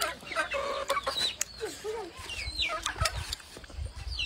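Chickens clucking repeatedly, short calls that bend up and down in pitch, with a few sharp clicks between them.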